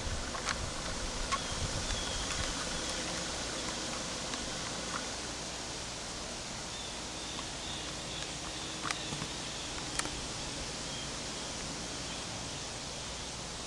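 Steady outdoor background hiss with a few faint clicks and, twice, faint high chirping.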